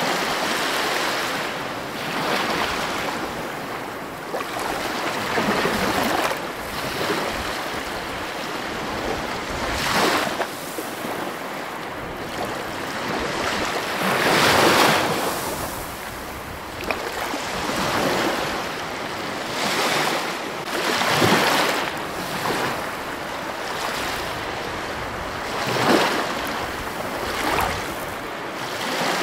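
Ocean surf breaking and washing over rocks, rising and falling in surges every few seconds, the biggest about halfway through.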